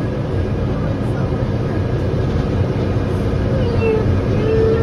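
Steady rumble and hum of a Morgantown Personal Rapid Transit pod running along its guideway, heard from inside the cabin. A few short pitched sounds come near the end.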